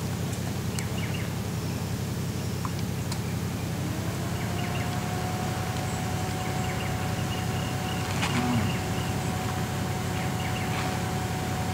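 Suzuki Jimny engine running low and steady as it crawls up a steep rutted dirt track, with a faint steady whine coming in about halfway and a brief knock a little later. Birds chirp now and then.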